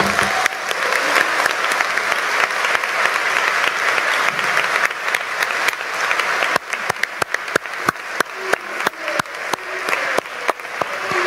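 Delegates applauding in a large hall: a dense, even wash of clapping that about six and a half seconds in thins out into separate, sharper claps.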